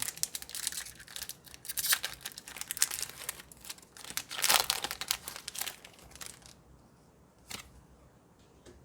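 Foil Pokémon booster-pack wrapper crinkling and tearing as it is opened. The crackling runs for about six and a half seconds and is loudest around four and a half seconds in, then it dies down, leaving one sharp click.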